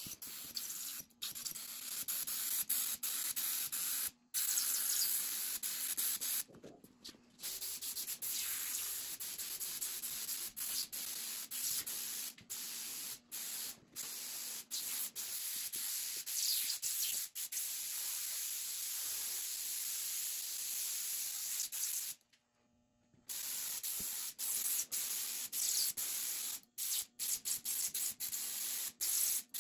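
Gravity-feed compressed-air paint spray gun hissing as it sprays paint. The hiss comes in long stretches broken by brief gaps, the longest about three-quarters of the way through.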